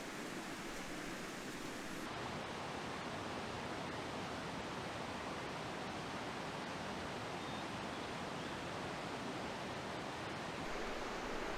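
Mountain stream water rushing steadily, an even hiss of flowing water, with a slight shift in its tone about two seconds in.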